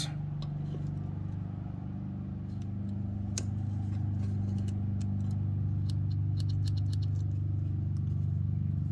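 A steady low motor-like hum, with scattered small clicks, a few in a row about six seconds in, from the Swiss Champ's little scissors being opened and handled.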